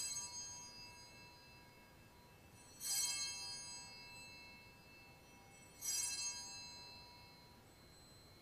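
Altar bells rung three times, about three seconds apart, each ring a cluster of high tones that fades away slowly: the signal of the elevation of the host at the consecration of the Mass.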